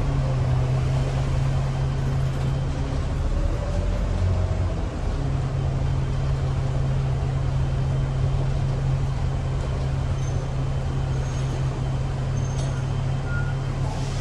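Alexander Dennis Super Pointer Dart single-deck bus running, heard from inside the cabin at the front: a steady engine drone over road noise. Its low hum weakens about two and a half seconds in and comes back strongly about five seconds in.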